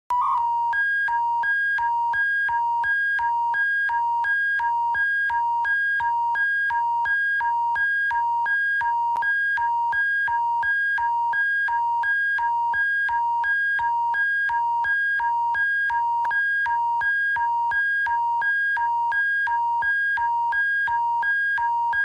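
Alberta emergency alert attention signal: an electronic two-tone alarm pulsing about twice a second over a low steady hum, sounding the start of a new alert broadcast.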